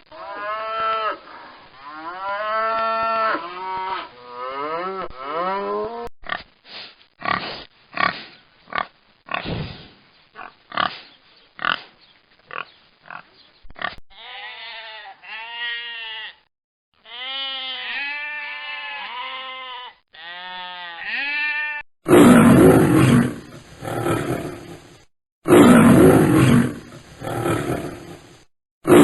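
A run of animal calls from several different animals, one after another. First come drawn-out pitched calls, then a string of short sharp grunts, then quick repeated bleating-like calls, and finally loud harsh calls near the end.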